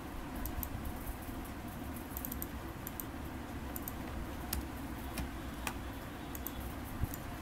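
Scattered clicks of a computer keyboard and mouse, some in quick little runs, over a steady low background noise.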